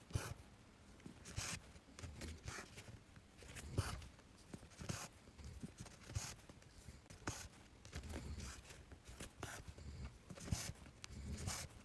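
Embroidery thread being drawn through cross-stitch fabric with a needle: short swishing strokes, irregularly one or two a second.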